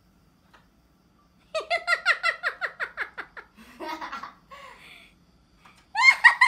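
A person laughing in a quick run of short falling 'ha' sounds, then a few more laughs, and a loud high-pitched cry near the end.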